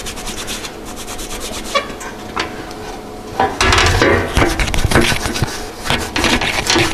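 Hand cleaning on an aluminium bumper, rubbing strokes with an acetone-soaked rag to prepare it for TIG welding. The strokes are lighter at first and become louder and more forceful a little past halfway.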